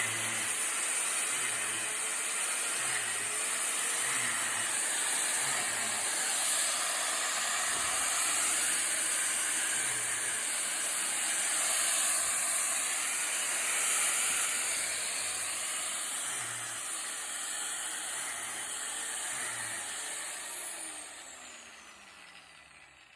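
Angle grinder fitted with a drill bit running at high speed, boring plug-spawn holes into a white oak log. Near the end it is switched off and winds down, its whine falling in pitch as it fades.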